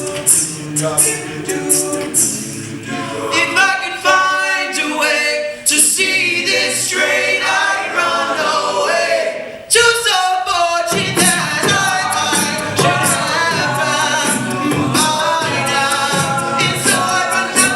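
An a cappella vocal group singing in harmony, a solo voice over the backing voices, with a percussive beat. The sound thins out just before ten seconds in, then the full group comes back in.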